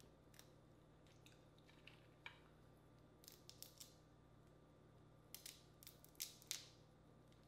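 Boiled crawfish shells cracking and crackling as they are peeled apart by hand: a scatter of short, sharp clicks, closest together and loudest near the end.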